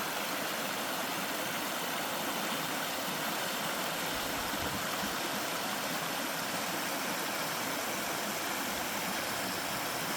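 Small mountain-stream waterfall, water pouring and rushing steadily.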